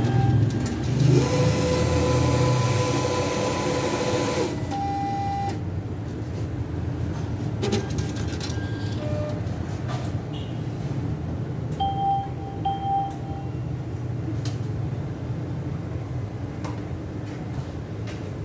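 BCA cash deposit ATM handling the deposited banknotes: a steady motor whine for a few seconds early on, then a beep, followed by clicks and whirring of the note mechanism with a low hum under it, and two short beeps about two-thirds of the way in, while the deposit is being processed.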